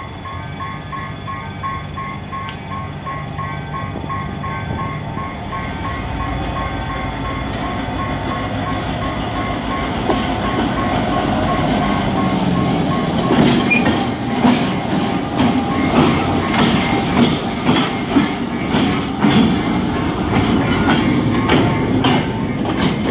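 Diesel locomotive drawing closer with its engine running under load, growing louder, then the hopper wagons of a work train rolling past close by with a run of sharp wheel clacks over the rail joints from about halfway through. A level crossing warning signal dings rapidly and steadily in the background during the first half.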